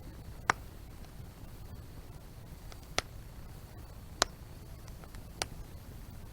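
Burning firewood crackling, with four sharp pops a second or so apart over a low steady rumble of the fire.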